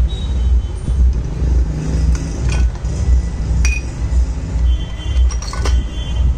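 A few sharp metallic clinks of a hand tool against the Honda Activa's CVT drive pulley and its centre nut, with the engine stopped. A steady low beat of background music runs underneath.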